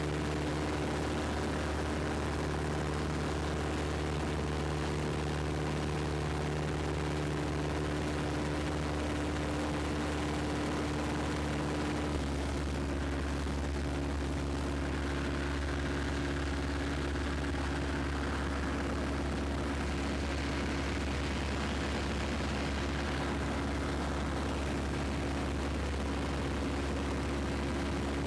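Piper PA-17 Vagabond's engine and propeller running steadily in flight, heard from inside the cockpit, with the engine note shifting slightly about twelve seconds in.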